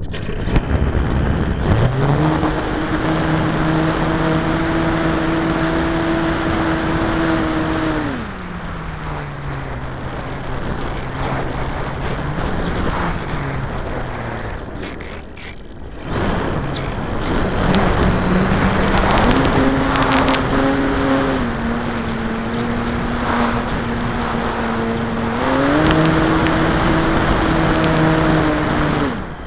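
Model aircraft's motor and propeller running, the pitch stepping up and down with the throttle: it rises about two seconds in, drops near the eight-second mark, then climbs again in steps through the second half before falling at the end. A steady rush of wind over the microphone runs underneath.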